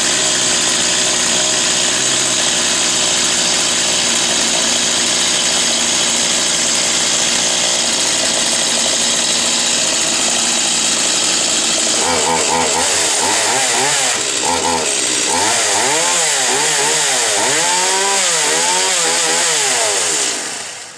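Stihl MS 170 two-stroke chainsaw running at high speed with a steady pitch. About halfway through, the engine pitch starts to rise and fall over and over, about once a second, and the sound dies away just before the end.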